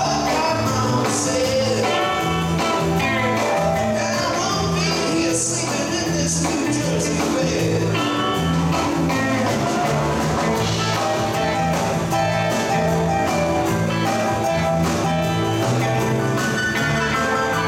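Live blues-rock band playing: electric guitars over a walking bass line and a drum kit with cymbals, with a male lead vocal.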